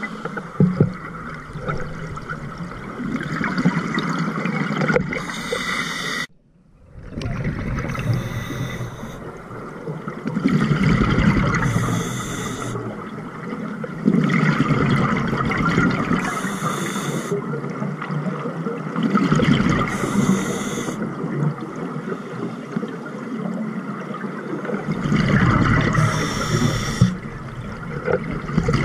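Scuba diver breathing through a regulator underwater: the hiss of each breath and the gurgle of exhaled bubbles, coming round every few seconds. About six seconds in the sound cuts out briefly.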